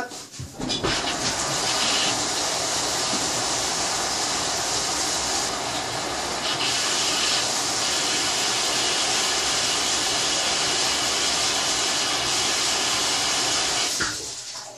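Water running hard from a tap in a steady hissing rush whose tone shifts now and then as the stream splashes, then shut off with a click near the end.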